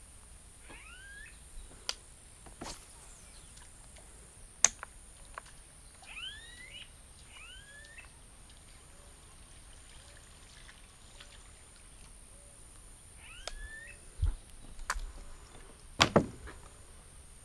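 A bird calling in three short bouts of swooping calls a few seconds apart, over faint outdoor background. Near the end come a few knocks of the paddle against the kayak, the loudest sounds here.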